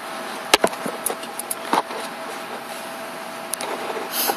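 Handling noise from a handheld phone camera being moved about: scattered knocks and rubbing clicks over a steady background hiss with a faint steady tone.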